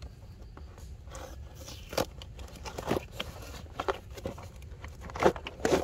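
A toy box being opened by hand: cardboard and plastic packaging rustling and crinkling, with a few sharp clicks and taps.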